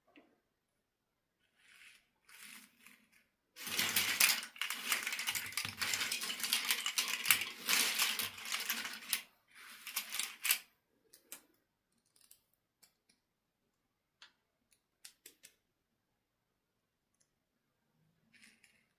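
Handling of plastic toy packaging: a few seconds of dense crinkling and clicking, then scattered light clicks and taps.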